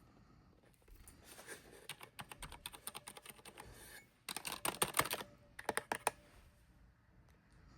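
Cherry MX Board 3.0 S mechanical keyboard with MX Red Silent switches being typed on: runs of quick key clacks, loudest in a dense burst about four to five seconds in, then a shorter run around six seconds.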